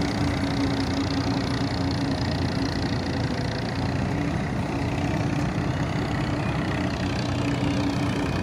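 Diesel tractor engine running steadily at low revs.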